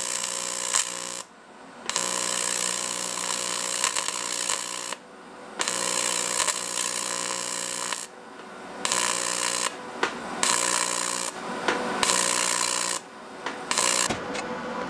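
TIG welding arc on an aluminium gearbox casing: a steady buzzing hiss that cuts off for about half a second and starts again several times as the welder stops and restrikes the arc.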